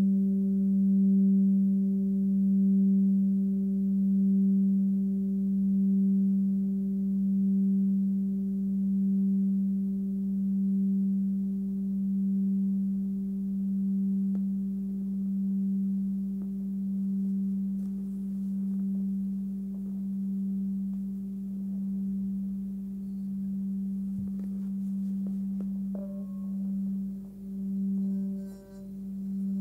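Nepalese singing bowl, 18.5 cm across and tuned to about 194 Hz (G), ringing out: one low steady hum with fainter higher overtones, swelling and dipping slowly as it fades. Near the end a soft knock, and the hum begins to swell and dip more deeply.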